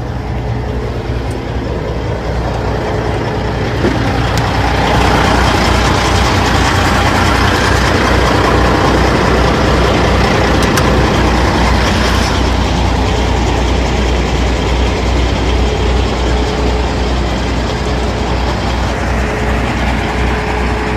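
Caterpillar C15 diesel of a 2003 Kenworth T600 idling steadily with a deep, even hum. It gets louder about a quarter of the way in and stays louder for several seconds.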